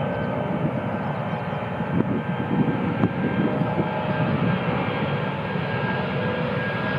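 Airbus A330-200's twin jet engines at takeoff power during the takeoff roll: a steady roar with a faint whine on top.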